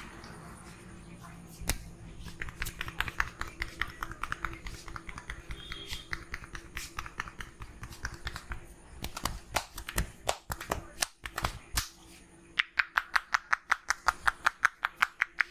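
Rapid rhythmic hand slaps of percussive head massage, about five or six strokes a second. A few louder, irregular strikes come past the middle, then a loud, very even run of sharp claps near the end.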